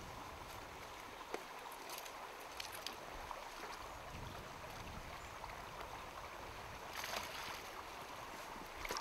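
Shallow, rocky moorland stream running: a steady, fairly faint rush of water, with a few small clicks and a slightly louder stretch of water noise about seven seconds in.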